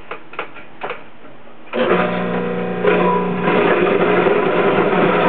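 A few light knocks, then a motor starts about two seconds in and runs steadily, growing louder about halfway through.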